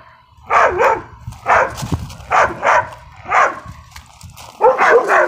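A dog barking repeatedly: about nine loud barks, mostly in quick pairs.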